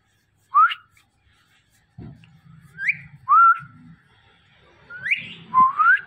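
Indian ringneck parakeet whistling: five short, clear whistles, each sliding upward in pitch, one near the start, two in quick succession mid-way and two more near the end.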